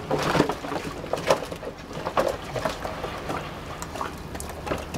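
Water from a shower head spraying and splashing in a plastic paddling pool, with irregular splashes and knocks as a White Shepherd dog moves about and snaps at the spray.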